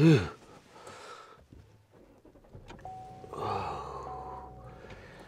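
A Chevy Equinox being started: a click, then the engine catches and runs about three seconds in. A dashboard chime beeps three times, about once a second, with the cold-weather 'ice possible' warning.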